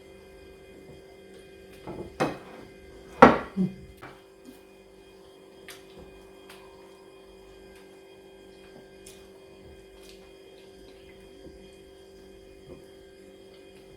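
A steady electrical hum with a few knocks and clatters of dishes about two to four seconds in, the loudest just after three seconds, then a handful of faint clicks.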